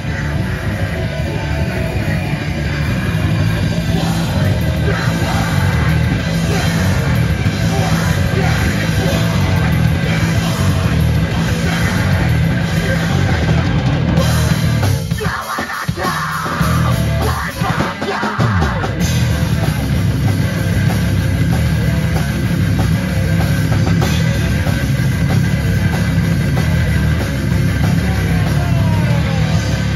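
Live extreme metal band playing loud through a PA: drum kit, distorted electric guitar, bass and vocals. The band briefly stops and starts about halfway through, then comes back in at full level.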